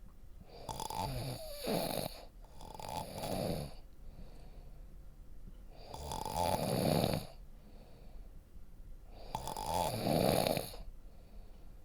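A person snoring deeply: four snores, each about a second long, with quieter pauses between.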